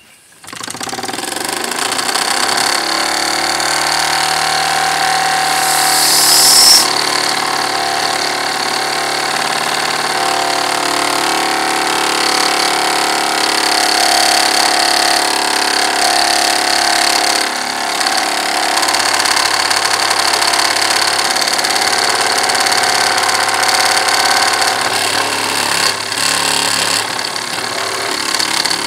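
Wilesco D6 model steam engine with a single-acting oscillating (wobbler) cylinder, starting about half a second in and then running steadily. Much of the noise is vibration, the engine shaking against the wooden workbench it stands on. A short hiss about six seconds in is the loudest moment.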